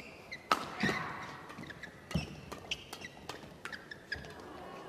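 Badminton doubles rally: sharp, irregular cracks of rackets striking the shuttlecock, with short squeaks of court shoes on the mat between shots.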